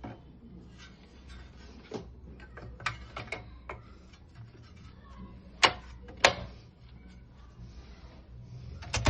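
Keys of a 1975 Keller & Knappich Princess 500 manual typewriter being struck at an uneven pace, sharp clicks of varying strength, with two much louder strikes a little past the middle and another near the end.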